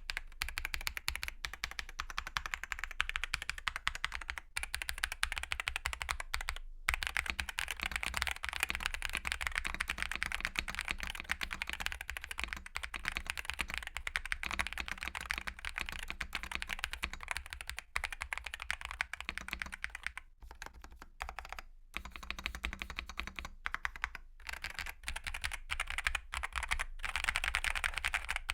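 Continuous fast typing on a GMK67 mechanical keyboard with Akko V3 Cream Yellow Pro linear switches and cherry-profile PBT keycaps, a dense run of key strikes with a few short pauses. The board is tape-modded with extra case foam and lubed stabilizers and switch housings.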